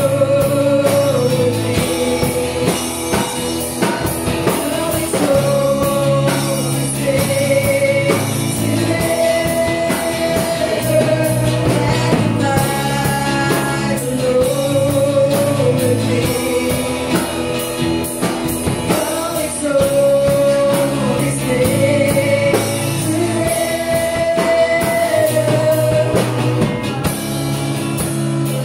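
A live band plays a slow worship song: female voices sing long held notes over acoustic guitar, electric bass and drum kit.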